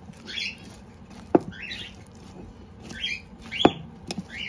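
Metal fork stirring shredded chicken, chopped vegetables and mayonnaise in a ceramic bowl: soft wet squelching strokes, with two sharp clinks where the fork strikes the bowl.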